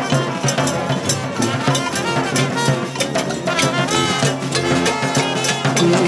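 Street brass band playing a lively tune: sousaphone, trombones and trumpets together, with percussion keeping a steady beat.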